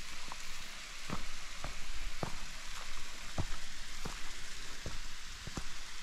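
Footsteps on a dry dirt trail, a low step about every two-thirds of a second, over a steady rushing hiss.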